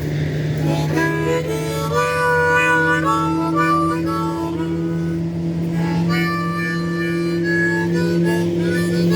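Harmonica playing a bluesy melody of shifting notes and chords over a steady low hum.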